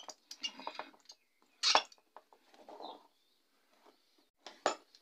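Scattered light clicks and rustles from wires and a small toggle switch being handled on a wooden bench, with a sharper click about a second and a half in and two more near the end.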